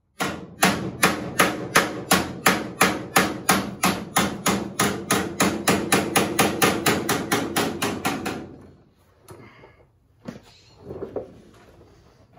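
Hammer striking the steel door sill of a Ford Model A roadster body, about 30 quick, even, ringing blows at three to four a second, worked without a dolly to bring the sill's line into shape. The hammering stops about eight seconds in, followed by a few faint knocks.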